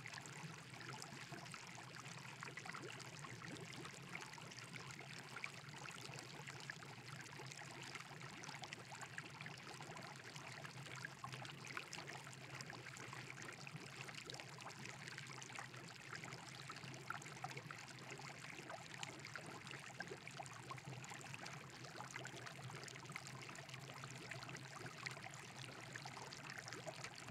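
Steady trickling, running water with a faint low hum beneath it.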